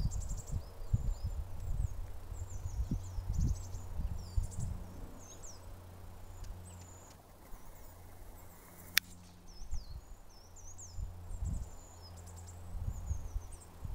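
Small woodland birds singing, with many short high chirps and trills, over a low rumble and uneven thumps on the microphone. One sharp click comes about nine seconds in.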